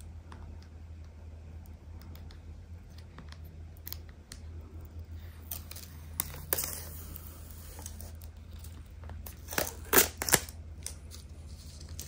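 Thin plastic protective film being peeled off a clear MagSafe phone case: scattered small crackles and clicks, with a few sharp, loud crackles about ten seconds in, over a low steady hum.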